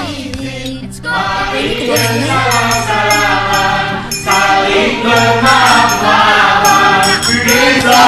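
Advert background music: a choir singing a melody over instrumental backing, with held bass notes and light high percussion.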